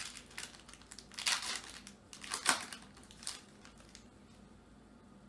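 Plastic wrapper of a basketball card pack being torn open and crumpled by hand, in a string of sharp rustles, loudest about a second in and again about two and a half seconds in, then stopping near the end.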